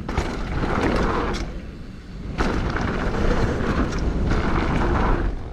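Wind rushing over the microphone and tyres rolling on dirt as a hardtail mountain bike rides a jump line, with scattered sharp clicks and rattles from the bike. The rush dips briefly about two seconds in and comes back louder.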